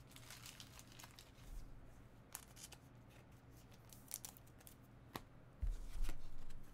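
Trading cards handled and laid down on a playmat: scattered light clicks and rustles, with a soft low thump a little before the end.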